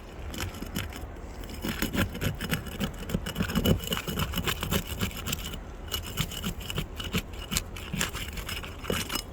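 Asphalt roof shingles being pried up to get at their nails: a tool scraping under them in irregular rasping strokes with sharp crackles, busiest a couple of seconds in. Steady wind rumble on the microphone.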